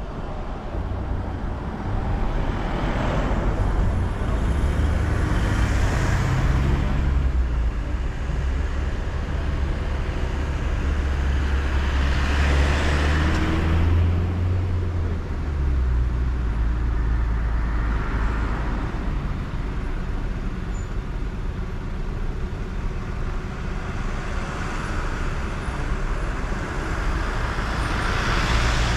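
A car driving along a road: a steady low engine and road rumble, with a rushing hiss that swells and fades several times.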